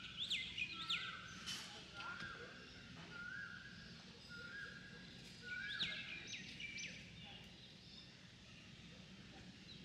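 Birds calling: one repeats a short whistled note about once a second, while sharp falling chirps from another bird come in among them, thinning out about seven seconds in. A faint steady low hum lies underneath.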